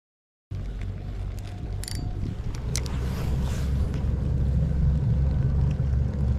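Wind buffeting the microphone: a loud, steady low rumble that starts abruptly about half a second in, with a few faint clicks over it.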